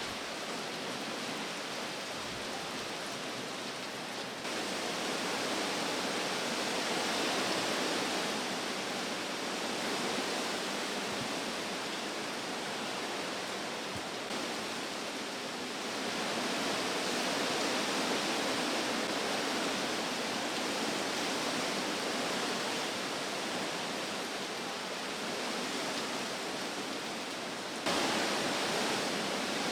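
Hurricane wind and rain: a steady rushing noise that swells and eases, stepping up abruptly about four seconds in and again near the end.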